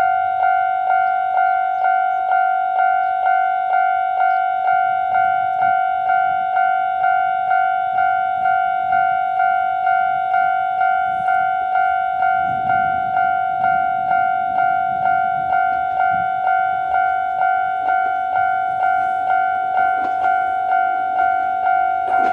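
Japanese railway level crossing alarm ringing its normal warning tone, a steady metallic clang repeating about twice a second.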